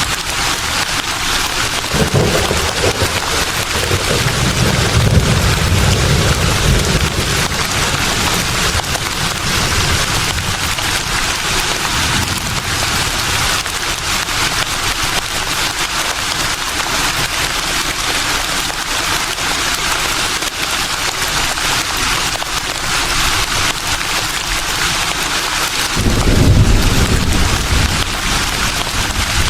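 Leaves rustling in a breeze, a steady dense hiss, with low rumbling swells about two seconds in and again near the end.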